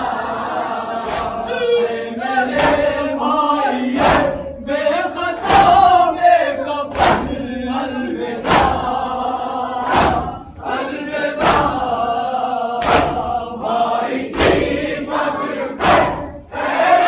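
A group of men singing a noha, a Shia mourning lament, in chorus while beating their chests in unison (matam): a loud slap lands together about every second and a half under the singing.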